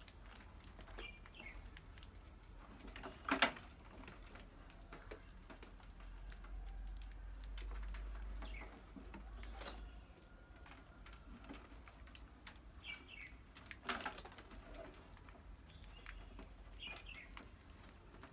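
Mice moving about in and around a wire-mesh cage trap with a plastic jar entrance, with two sharp knocks about three and a half and fourteen seconds in, and a few faint short chirps.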